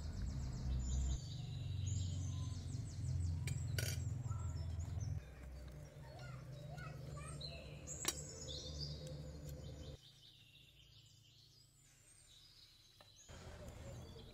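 Metal cutlery clinking against a glass plate twice, over small birds chirping and a low background rumble that fades away about ten seconds in.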